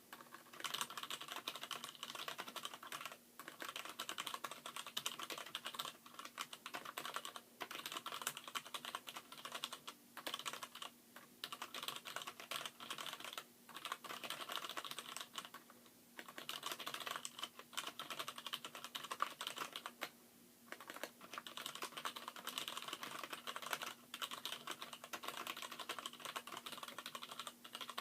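Fast continuous typing on a Poker X mechanical keyboard: Gateron Brown stems and springs in Cherry MX Black housings on the letter keys, Cherry MX Black switches elsewhere. A rapid, dense clatter of keystrokes is broken by brief pauses every few seconds, the longest about 20 seconds in.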